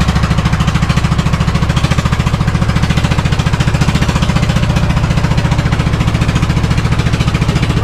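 A small wooden fishing boat's engine running steadily with a rapid, even pulsing beat.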